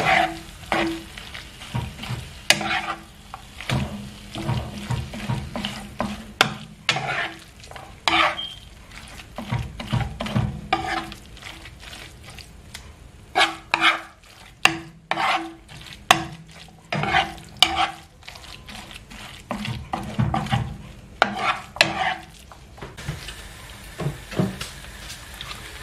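Metal spoon stirring and scraping a tuna and tomato filling around a hot frying pan in irregular strokes, with occasional sharp knocks against the pan, over a sizzle of frying. Near the end the stirring stops and only the sizzle goes on.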